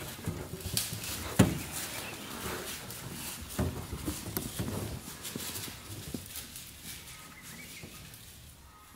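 Sloth bear foraging in dry leaf litter: irregular rustling and crackling with scattered knocks, the sharpest about a second and a half in, dying down near the end.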